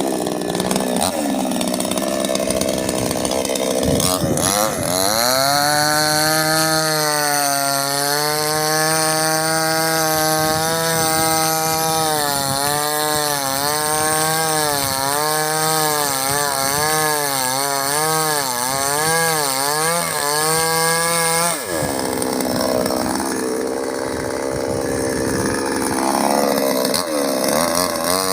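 Two-stroke chainsaw cutting oil palm. It comes in loud, climbs to full revs a few seconds in, and its pitch dips and recovers over and over as the chain bites into the wood. Near the end it falls to a lower, rougher note.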